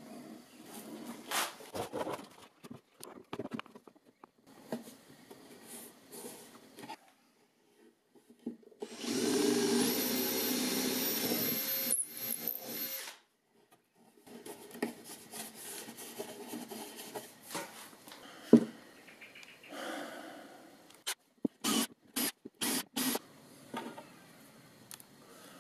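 A power drill runs steadily for about four seconds, counter-drilling into a plywood drawer front. Around it there is handling noise of hands rubbing and tapping on the wood, and a quick run of about five sharp knocks near the end.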